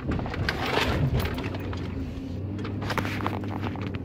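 Inside a moving truck's cab: engine and road noise as a steady low hum, with a few irregular knocks and rustles, loudest about a second in.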